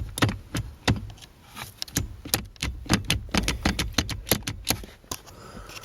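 Irregular clicking and rattling of plastic and metal as a jammed ignition switch assembly is wiggled and worked loose from the steering column, several sharp knocks a second.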